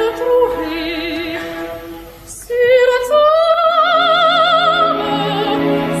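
Operatic singing with wide vibrato over orchestral accompaniment, from an old live concert recording of a love duet. About two seconds in there is a brief break, and then a long high note is held.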